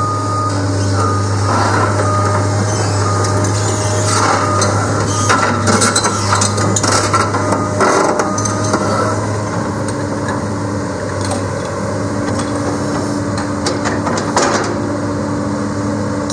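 Komatsu PC200LC-8 excavator's six-cylinder turbo diesel running steadily, with a run of metal clanks and knocks in the middle and one more clank near the end.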